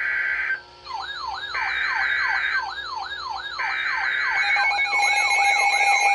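Three one-second bursts of Emergency Alert System SAME data-header screech, overlaid from about a second in by a siren tone sweeping rapidly up and down. The two-tone EAS attention signal starts about five seconds in. Together they mark the start of a tornado warning broadcast.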